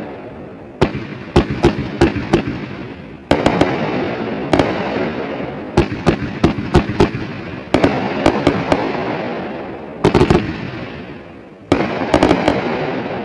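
A 30-shot 500-gram Megabanger fireworks cake firing at a rapid pace: a string of bangs from its brocade mines and bursts, each fading into a hiss, with clusters of sharp cracks in between.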